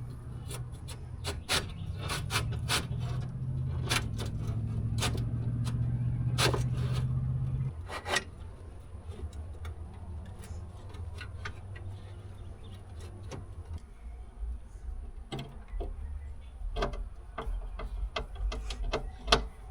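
Scattered clicks and knocks of the window glass and its mounting hardware being worked into a car door's tracks. A steady low hum runs under it and stops abruptly about eight seconds in.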